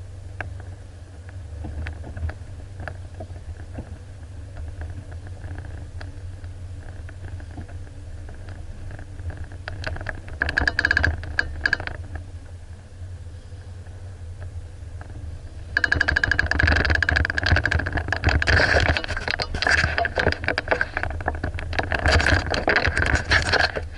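Off-road vehicle's engine running low and steady, with loud rattling and clattering that comes in briefly about ten seconds in and then continuously from about sixteen seconds on.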